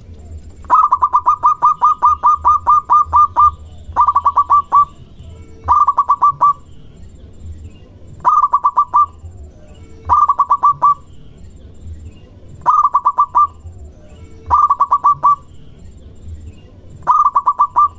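A zebra dove (perkutut) singing. It gives a long run of about a dozen rapid, clipped cooing notes, then short phrases of a few notes each, repeated every two seconds or so.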